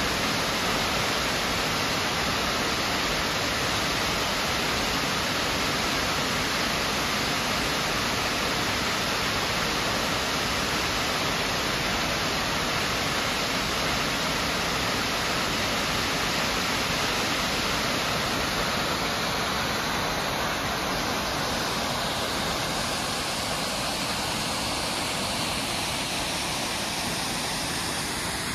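Tall waterfall pouring over a sandstone cliff into a rocky gorge: a steady rush of falling water, a little softer near the end.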